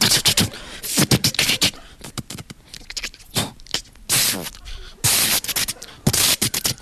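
A man making improvised sound effects with his mouth into a microphone: rapid clicks and tongue snaps, short voiced squeaks, and two long hissing blasts about four and five seconds in.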